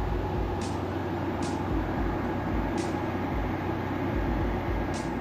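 Room air conditioner running with a steady hum and whoosh, with a few short soft hisses at uneven gaps over it.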